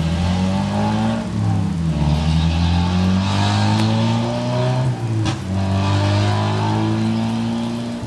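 Car engine pulling through an exhaust cutout that is open, climbing in pitch as it accelerates, with a short break and drop in pitch about five seconds in before it climbs again.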